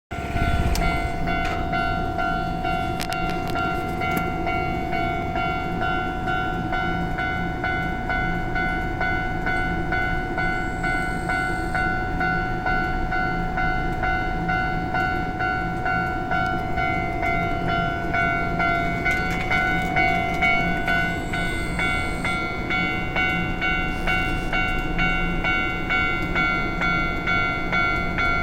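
Japanese railway level-crossing alarm ringing steadily over the continuous rumble of a Nankai electric train running past. A higher ringing tone grows louder about two-thirds of the way through.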